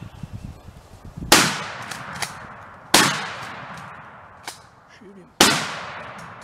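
Shotgun fired three times, about a second and a half and then two and a half seconds apart, each shot ringing out with a long echo.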